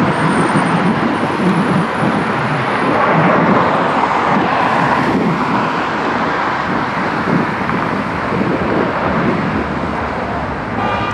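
Jet aircraft passing overhead, a loud steady rushing noise that swells slightly a few seconds in.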